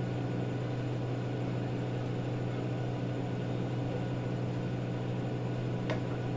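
Steady low room hum with an even hiss, from electrical equipment or a fan, with one faint click near the end.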